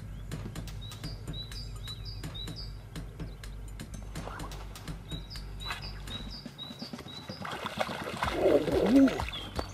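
Small songbird chirping in quick runs of short, high, repeated notes. Near the end a hooked crucian carp splashes hard at the surface, with a short wordless vocal grunt over it, the loudest part.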